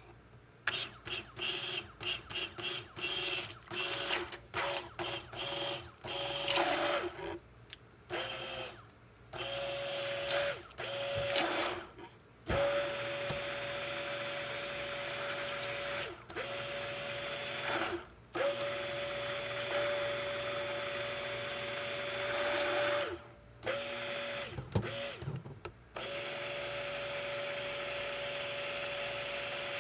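Electric stick (immersion) blender running in a crockpot of hot-process soap batter, lye solution and oils, blending it toward trace. It is pulsed in quick short bursts for the first several seconds, then run in longer stretches of a few seconds each, with brief stops.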